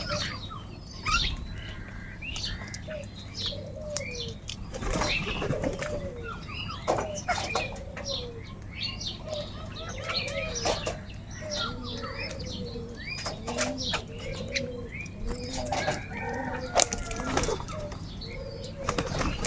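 A group of crows calling over one another, with wings flapping, as they squabble over food. Many short calls overlap throughout.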